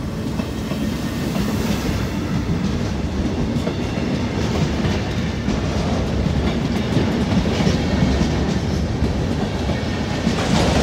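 Passenger coaches rolling past close by: a steady rumble of steel wheels on rails, getting a little louder near the end.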